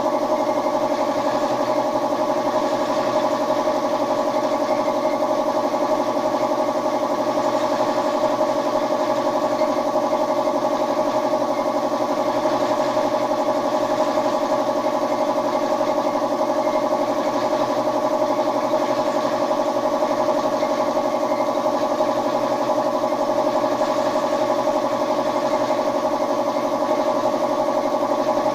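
Air compressor running steadily to feed a paint spray gun: an even mechanical hum with a steady hiss above it.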